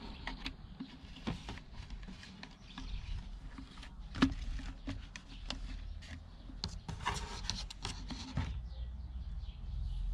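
Plastic bottle, clear plastic tubing and wire being handled on a tabletop: rubbing and rustling with scattered clicks, one sharper click about four seconds in and a busier stretch of rubbing about three-quarters of the way through.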